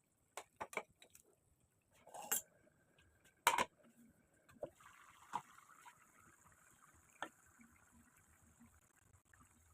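Kitchen handling sounds: a few light clicks and knocks, the loudest about three and a half seconds in, then a faint steady hiss from about five seconds in.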